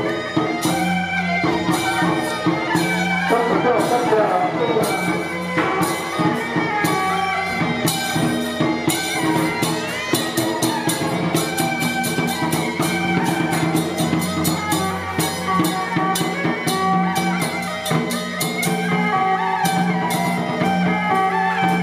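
Traditional Taiwanese temple-procession music from a shifan (十番) troupe: drums and percussion struck continuously under a held melody line.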